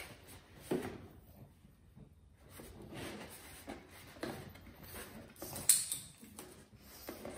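Cardboard boxes being handled and fitted together, with irregular rustling, scraping and soft knocks, and tape being pressed onto the cardboard; one sharper crackle, the loudest sound, comes about two-thirds of the way through.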